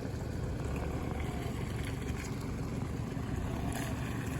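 A four-wheel drive's engine running at low revs in a steady drone as it crawls through a muddy bog.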